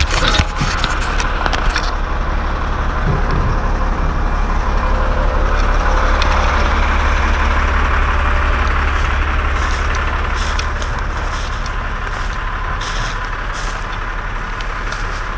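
Bucket truck engine running steadily, a low hum that swells slightly in the middle, with a few knocks near the start and light clicks later on.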